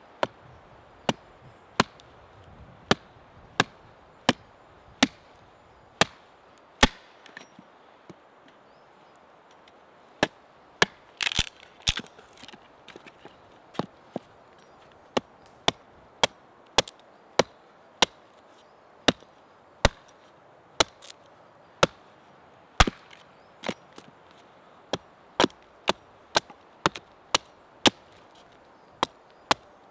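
Hatchet chopping at a stick held upright on a wooden chopping stump: a long series of sharp wooden knocks, roughly one every half second to a second, with a short pause and a brief splintering crackle about eleven seconds in.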